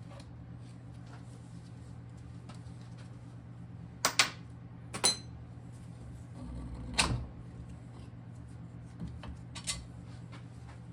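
Parts and tools being handled, giving a few sharp knocks and clacks (a cluster about four to five seconds in, another about seven seconds in, two lighter ones near the end) over a steady low hum.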